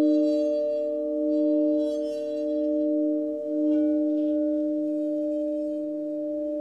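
Alchemical crystal singing bowls ringing together in several sustained tones, the lowest swelling and fading in slow waves, with brief bright shimmers of high overtones a few times.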